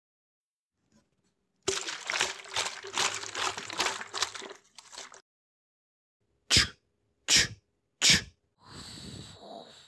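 Liquid glugging and splashing as petrol is poured out of a can. Then three sharp flicks of a flip-top lighter's flint wheel, and a short hiss as the flame catches.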